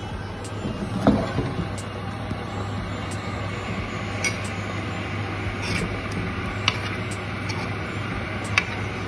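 Boiled eggs frying in oil and onion masala in a pan, sizzling steadily with a few sharp pops, over a steady low hum. Near the end a metal spoon stirs through the pan.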